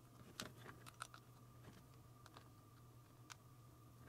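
Near silence with a few faint, scattered clicks and taps: fingers and nails on a plastic Play-Doh mold as dough is pressed into it and worked loose, over a low steady hum.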